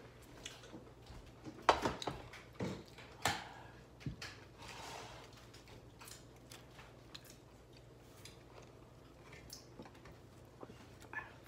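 Plates and utensils knocking and clinking on a table during a meal. There is a cluster of sharp knocks in the first few seconds, then only faint scattered clicks of eating.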